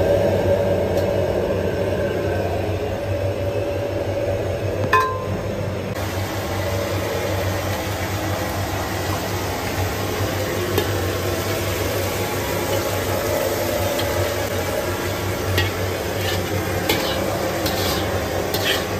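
Food sizzling as it is stir-fried in a wok over a steady low hum, with a few sharp clinks of utensil on metal about five seconds in and several more near the end.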